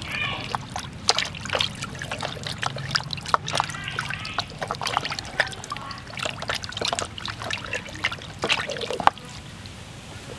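Water splashing and sloshing in a plastic basin as a whole raw chicken is rubbed and turned in it by hand, in quick irregular splashes that die down about nine seconds in.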